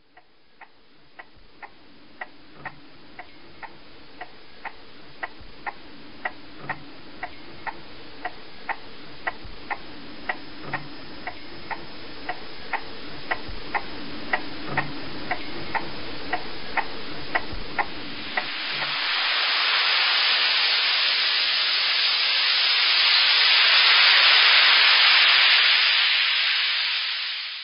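Steady ticking, about two ticks a second, over a hiss that slowly grows louder, with a low thud about every four seconds. About two-thirds of the way in the ticking stops and a loud rushing noise swells, then fades.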